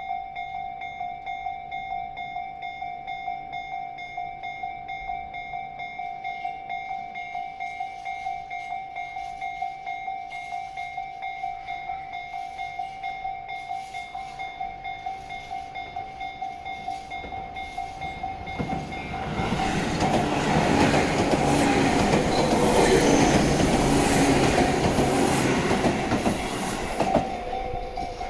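Japanese level-crossing warning bell ringing in a rapid repeating beat. About 19 seconds in, a Tobu local train passes over the crossing, its wheels on the rails loud over the bell for about eight seconds. Then the bell rings on alone.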